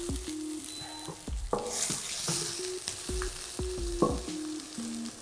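Rice frying and sizzling in a stainless steel pan while a wooden spatula stirs it, with a few light knocks of the spatula against the pan.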